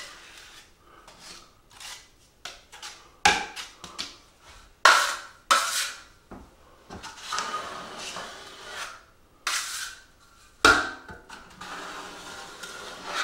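Steel drywall knife and trowel scraping joint compound onto a metal corner bead: a run of short scraping strokes and sharp metal clacks, with a few longer smoothing strokes later on.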